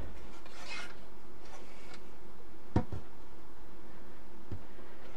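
Aluminium instrument case being handled: one light knock about three seconds in and a fainter one later, over a steady background hum.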